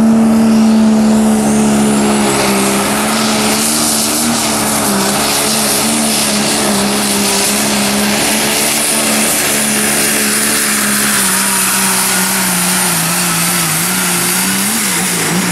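Super stock diesel pulling truck, a Dodge Ram, running flat out under load while pulling the sled. The engine holds a high steady pitch with a high turbo whine above it. The pitch sags over the last few seconds as the load builds, then drops away at the very end.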